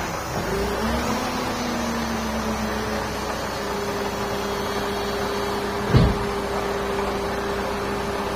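Mercedes-Benz car engine running, its tone wavering up and down for the first few seconds and then holding steady, with a single knock about six seconds in.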